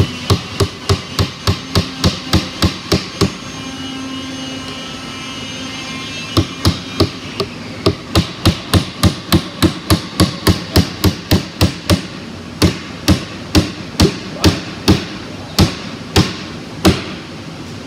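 Claw hammer driving 2-inch nails into a pine drawer frame: quick runs of sharp blows, about three a second, with a pause of a few seconds early on, then slower blows about two a second near the end. A steady background hum runs underneath.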